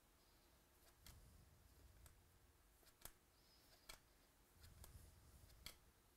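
Near silence with faint, sharp clicks about once a second and soft low rustles: baseball trading cards being flipped and handled.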